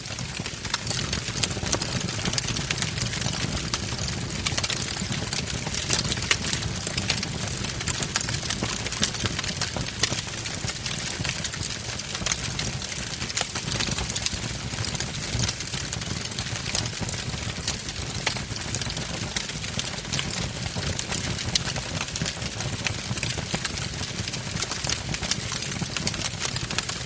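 Wood fire burning in a fireplace: a steady low rumble of flames with frequent small crackles and pops from the burning logs.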